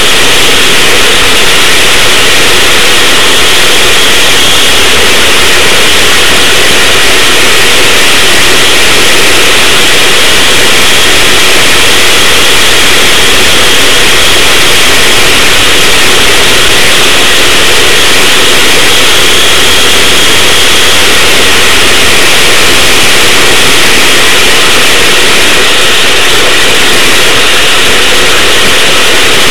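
Racing go-kart's engine running at speed, picked up by an onboard camera whose microphone is overloaded. It comes through as a constant, loud, distorted noise with no audible changes in revs.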